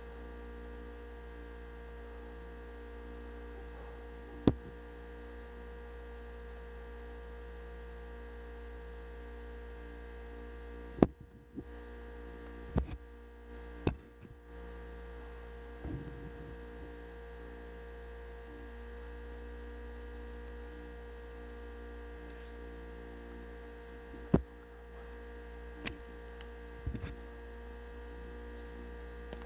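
A steady electrical hum made of several fixed tones, likely noise picked up by the recording gear. Sharp clicks come about 4 s in, three times between 11 and 14 s, and three more between 24 and 27 s.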